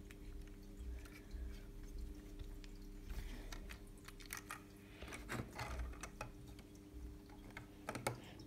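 Faint clicks and crackles of a plastic toy-brick truck being handled and turned in the hands, a few at a time, over a faint steady hum.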